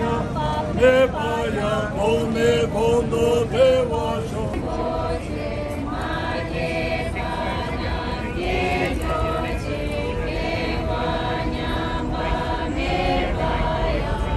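A group of voices chanting a prayer together in unison, first in short repeated rhythmic phrases, then about four seconds in moving to longer, drawn-out sung lines.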